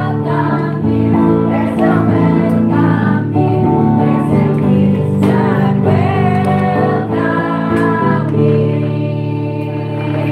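Church worship song: women's voices singing together over instrumental accompaniment with steady held chords.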